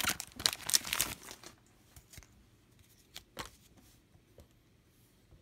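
Foil wrapper of a football card pack crinkling and tearing as it is opened by hand, dense for the first second and a half. After that, only a few soft clicks and rustles as the cards are handled.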